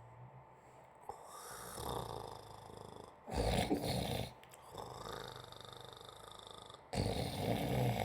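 Person snoring: two loud snores about a second long each, roughly three and a half seconds apart, with softer breathing sounds between them.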